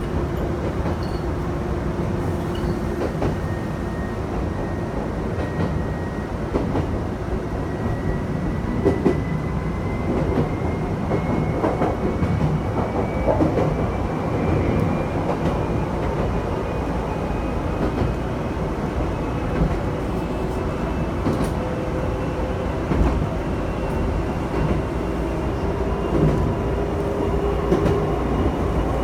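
Electric train running on the Chichibu Railway, heard from on board. A thin motor whine rises slowly and steadily in pitch as the train gathers speed, over the rumble and clatter of the wheels on the rails.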